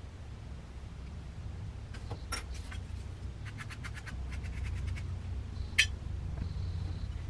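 Light clicks and taps of hand tools during bench work, trimming a clay piece: a few taps, then a quick even run of ticks about halfway through, and one sharper, louder tap near the end, over a low steady hum.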